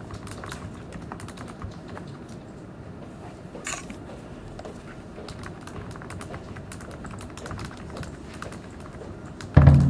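Typing on a computer keyboard: a steady, quick run of key clicks. Near the end comes a loud low thump, the loudest sound in the stretch.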